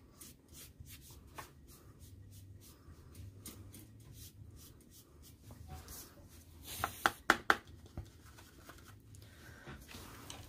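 Foam dauber of a paint bottle dabbing and rubbing black paint onto a paper journal page, with quick strokes of about four or five a second at first, then slower scrubbing. About two-thirds of the way in come a few sharp clicks from the bottle being handled.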